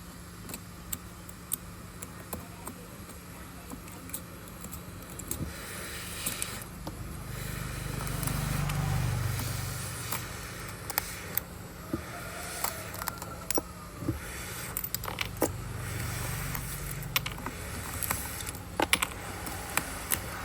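Small metal tools clicking, tapping and scraping against an iPhone 11's body and cracked back glass during repair work. A low electrical hum swells twice, most strongly about a third of the way in.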